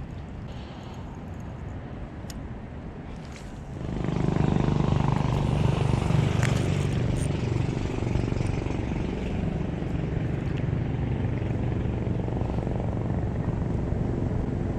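Steady low rumble of road traffic mixed with the river, growing louder about four seconds in.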